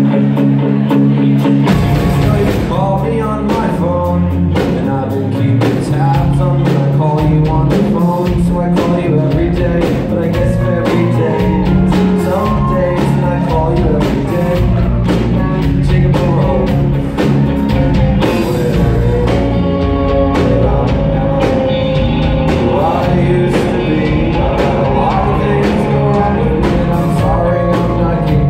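Rock band playing live and loud: electric guitars, with bass and a full drum kit coming in about two seconds in.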